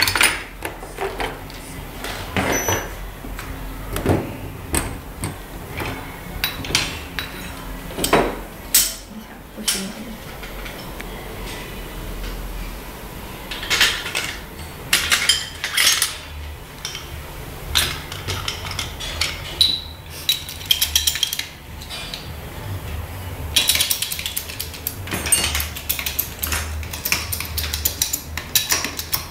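Metal tools and suspension parts clinking and knocking against each other during hands-on work on motorcycle shock absorbers: single sharp knocks, with quick rattling clusters of clinks.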